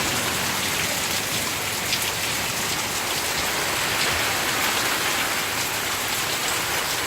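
Heavy downpour of rain, a steady hiss of drops pelting the ground, with water from an overflowing gutter dribbling down.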